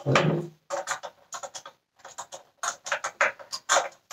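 Hand screwdriver turning out small screws from the plastic cyclone housing of a Dyson vacuum: a run of short, irregular scratchy creaks and clicks, several a second, with a louder, lower handling sound at the very start. The driver is not the proper T8 Torx, so the bit grinds against the screw heads.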